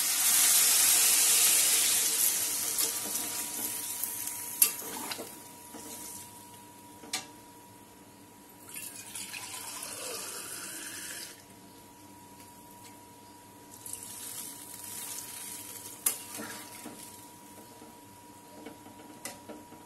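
Water poured into a hot kadai of fried fish and potatoes hisses loudly at first, and the hiss dies down over the next few seconds. After that a metal spatula stirs the curry, with a few sharp clicks against the pan and softer scraping.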